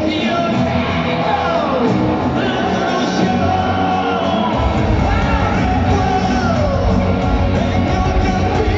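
Live pop music played over an arena's PA, heard from the stands, with sliding vocal lines and an audience yelling along. A heavy bass beat comes in about four and a half seconds in.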